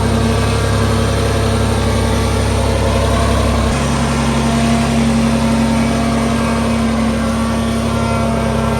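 Tractor diesel engine running steadily at a constant speed, its note shifting slightly about four seconds in.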